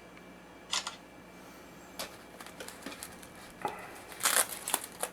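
Packaging tape being cut and peeled: a few short, scratchy rustles, with a louder cluster near the end.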